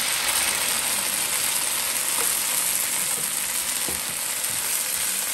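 Banana ketchup sizzling steadily in a hot nonstick wok, hitting the oil and the sautéed garlic and onion.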